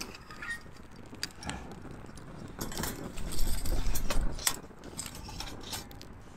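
Metal tongs clinking and scraping against a stainless-steel folding twig stove as the burning wood inside is poked and fed, a scatter of sharp metallic clicks with a louder clatter and rumble about three seconds in.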